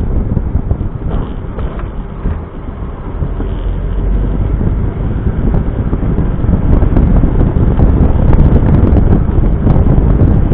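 Wind buffeting the microphone over the road noise of a Smart Roadster on the move; it eases off about two seconds in, then builds up again from around four seconds in.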